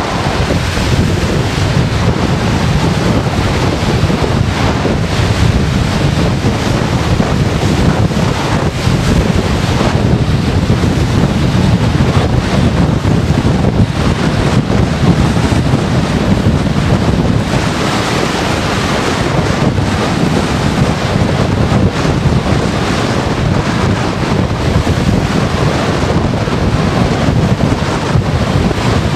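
Strong thunderstorm wind buffeting the microphone: loud, continuous noise without a break.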